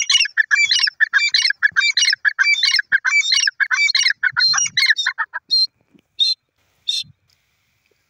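Grey francolin calling: a loud, fast run of repeated call notes for about five seconds, then three short single notes spaced apart.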